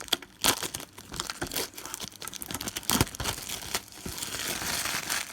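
A Pokemon booster pack's foil wrapper being torn open and crinkled by hand: irregular sharp crackles and snaps, with a denser run of crinkling near the end.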